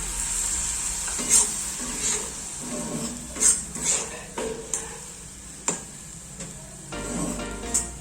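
Rice sizzling in a small kadhai with a splash of water just added, while a spoon stirs it, scraping and knocking against the pan in several sharp clinks.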